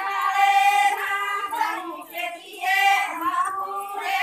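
Women singing a Banjara (Lambadi) devotional song, high voices holding long notes in phrases of about a second with short breaths between them.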